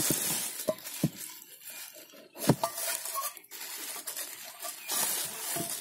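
Plastic bait containers and utensils being handled: scattered knocks and clicks over rustling, the loudest knock about two and a half seconds in.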